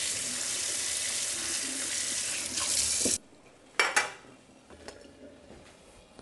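Kitchen tap running at full flow as hot boiled eggs are quenched under cold water to stop them cooking. It is shut off abruptly about three seconds in, followed by a couple of light clinks of dishes.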